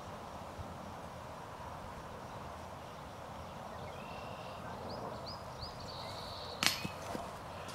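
Steady outdoor background noise. About four seconds in, a run of short high chirps ends in a held high whistle. A sharp knock and two fainter ones follow a little before the end.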